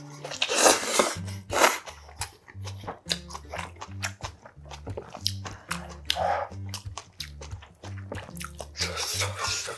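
A person slurping instant ramen noodles loudly, twice in the first two seconds and again near the end, and chewing in between. Soft background music with a repeating bass line plays underneath.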